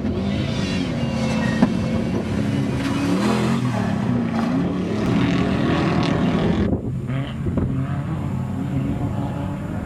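Off-road race truck engines running hard, the pitch rising and falling as the trucks rev and shift, with more than one engine heard at once. The sound changes abruptly about two-thirds through.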